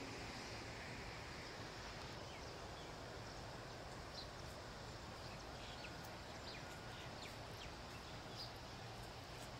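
Faint outdoor ambience: a steady low background rumble, with scattered short, high ticks from about two seconds in.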